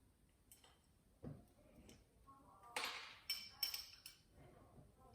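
Faint clicks and clinks of small hard parts being worked loose as heat sink mounts are removed from a TV main board. A cluster of about five sharp clinks comes between about three and four seconds in, some with a short ring.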